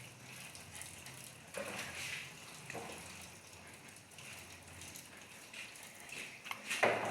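Faint sizzling of egg and bread frying in oil in a pan, with a few soft knocks.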